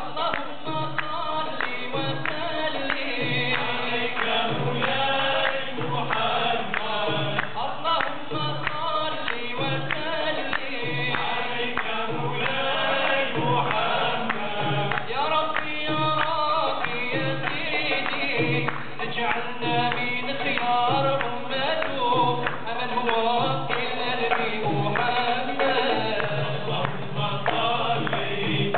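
A group of men singing together as a choir, accompanied by a frame drum struck in a steady beat.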